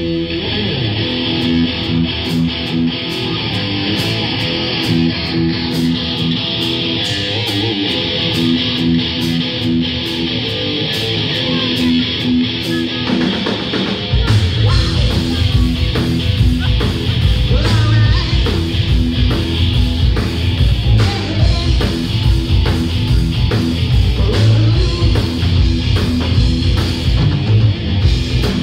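Live rock band: an electric guitar riff repeats over quick cymbal taps, then about halfway through the drums and bass come in hard and the full band plays on together.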